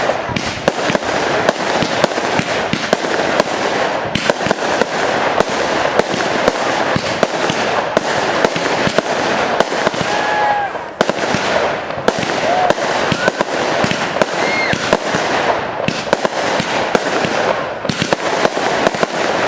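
Fireworks display: a dense, continuous barrage of bangs and crackling, with a few brief whistling tones around the middle.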